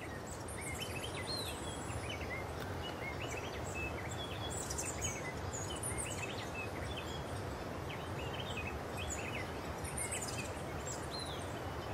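Birds chirping in many short, high notes, some sliding in pitch, scattered throughout. Underneath is a steady rushing background noise.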